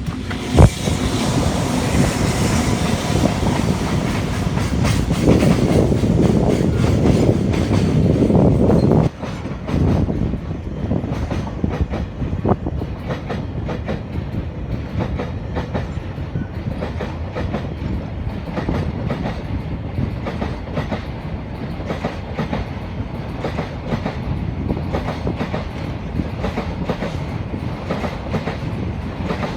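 Freight train rolling past, its wagons' wheels clattering over the rail joints in a steady clickety-clack. There is one sharp loud knock about half a second in, and a heavier rumble that drops away suddenly about nine seconds in.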